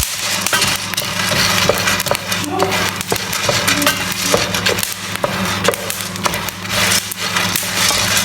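Arabic coffee beans being stirred in a hot pan as they roast toward brown, a continuous scraping rattle full of small clicks and crackles, over a steady low hum.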